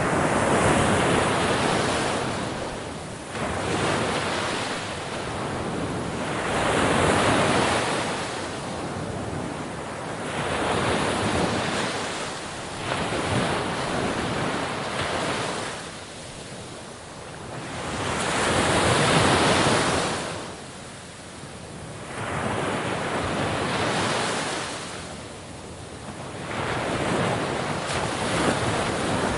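Sea waves breaking on a shore: rushing surf that swells and falls away in irregular surges every few seconds.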